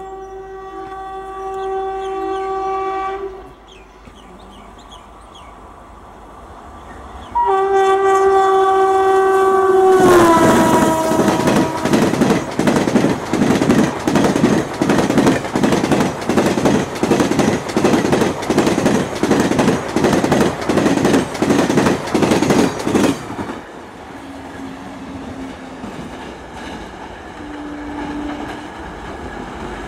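Express train's electric locomotive sounding its horn in long blasts; the pitch drops as it passes at speed. Its coaches then rush by with a loud, even clickety-clack of wheels over rail joints, about two beats a second, which cuts off suddenly. Near the end, short lower horn blasts come from another train.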